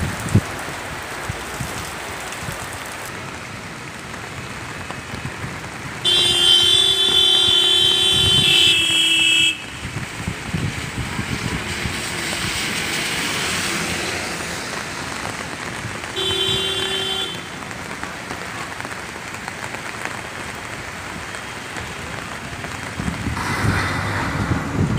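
Steady rain and traffic hiss on a wet road, broken by a vehicle horn: one long honk of about three and a half seconds that steps down in pitch near its end, and a shorter honk about ten seconds later.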